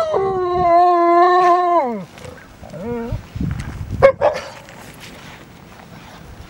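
Alaskan malamutes howling: a long, steady howl falls away at about two seconds. It is followed by a few short yelps, the sharpest at about four seconds in.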